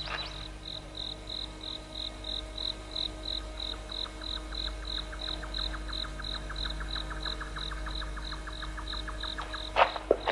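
Crickets chirping in a steady, even rhythm of about three high chirps a second, with a faster trill of ticks joining in about four seconds in. A few short, sharp knocks come near the end.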